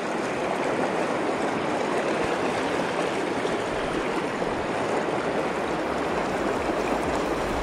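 River current rushing steadily past, a constant wash of fast-flowing water, with the river running high after rain.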